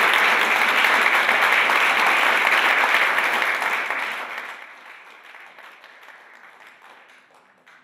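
Audience applauding, fading away about four seconds in.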